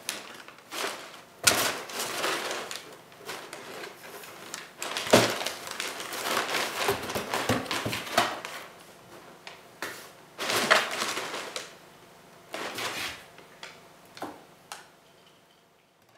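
Crumpled brown paper in a cardboard box crinkling and rustling, with light knocks on the cardboard, as cats paw and tumble in it. The sound comes in irregular bursts that grow sparser and fainter near the end.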